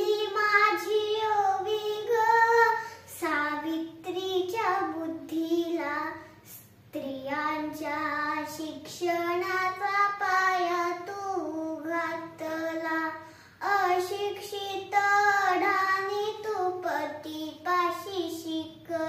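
A young girl singing a Marathi ovi (folk verse) unaccompanied, in phrases of a few seconds with short pauses for breath between.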